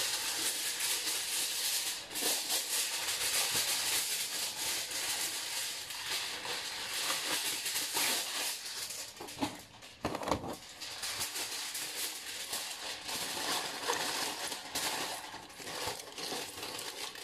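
Aluminium foil crinkling and rustling as it is unrolled from its box, torn off and pressed down by hand over a roasting pan, with many small crackles throughout.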